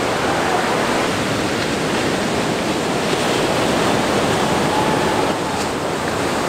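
Ocean waves breaking, with a steady wash of surf and white water.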